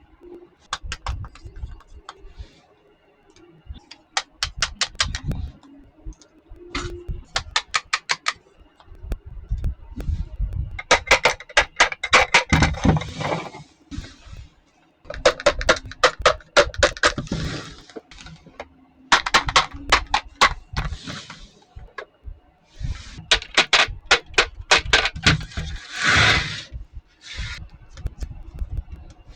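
Small plastic toy kitchen pieces being handled during unboxing: bursts of rapid clicking and rattling, several times over, with rustling or scraping mixed in.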